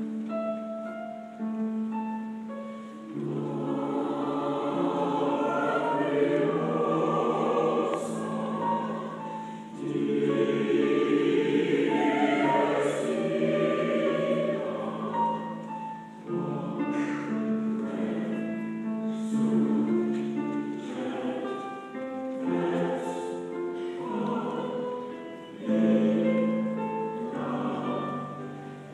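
Mixed choir of men and women singing a sustained, chordal piece with keyboard piano accompaniment, swelling louder about three seconds in and moving through several phrases with short breaths between them.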